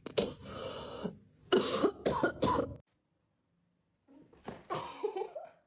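A run of short, rough coughs or hacks. It stops abruptly, and after a silent gap another noisy burst follows near the end.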